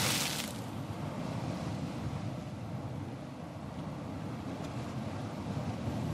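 Ocean surf: the wash of a breaking wave fades out in the first half second, then a steady low rumble of waves.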